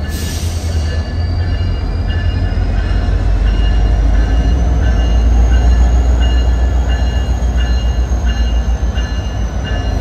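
Union Pacific diesel-electric locomotive leading a passenger train, rumbling past at low speed as it pulls into a station platform; the deep engine rumble grows louder as it draws alongside, with a thin high whine slowly rising in pitch.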